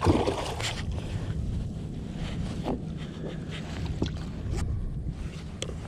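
Water splashing beside a fishing kayak, with a sudden loud splash right at the start followed by smaller splashes and short knocks of gear on the hull, over a low rumble of wind on the microphone.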